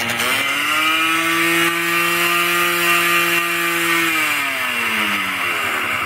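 Yamaha Blaster 200's single-cylinder two-stroke engine revved up sharply, held at high revs for about three seconds, then let fall back towards idle.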